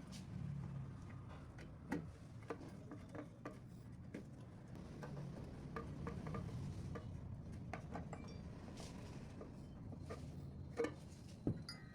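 Scattered light clicks and clinks of objects being handled, two sharper knocks near the end, over a low steady hum.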